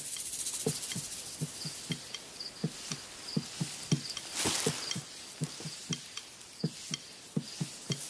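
Irregular dull knocks, roughly one or two a second, with a brief hiss about four and a half seconds in and faint high chirps in the background.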